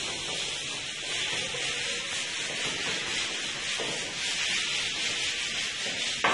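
A small hand-held pad rubbed over a painted plaster wall while working a decorative patiflor finish: a steady, scratchy rubbing, with one sharp knock near the end.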